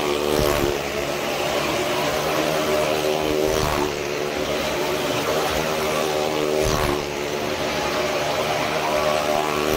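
Motorcycle engine running at a steady throttle while it laps the vertical wooden wall of a well of death. It swells and fades as it sweeps past about every three seconds.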